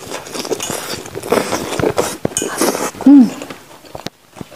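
Close-miked eating sounds: wet chewing, lip smacks and slurps of fish in spicy sauce, with fingers dipping in the bowl. A brief falling vocal sound, like an 'mm', comes about three seconds in and is the loudest moment.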